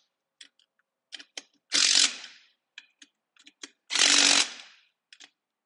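Cordless impact wrench with a 9/16 socket running wheel nuts onto a sprint car wheel in two short bursts, about two seconds apart, with small metallic clicks between. The nuts are only being snugged down, not torqued to spec.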